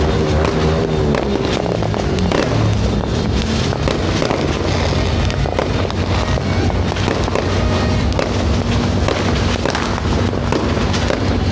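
Fireworks going off: a dense, continuous run of sharp pops and crackles.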